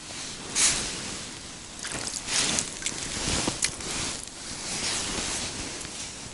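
Irregular rustling and scuffing of a winter jacket and movement on snowy ice as the angler bends down and handles his catch, with a few sharper scrapes about half a second in and around three and a half seconds.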